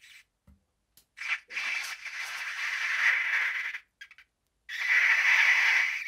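A person blowing hard through a cooked turkey-fettuccine sausage to force the filling out of the far end. A short puff comes about a second in, then two long breathy blows, the first about two seconds long and the second about a second and a half.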